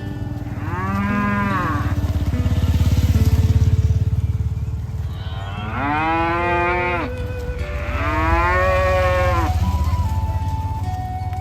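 Cows mooing: three long moos, each rising and then falling in pitch, the second and third close together, over a steady low rumble.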